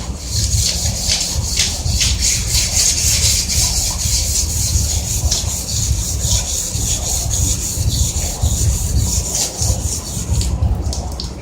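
Steady abrasive rubbing on the water heater's casing, stopping about ten and a half seconds in, over a continuous low rumble.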